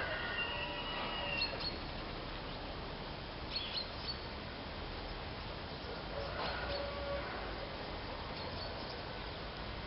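Steady outdoor background noise with a few short, faint chirps, like bird calls, at scattered moments.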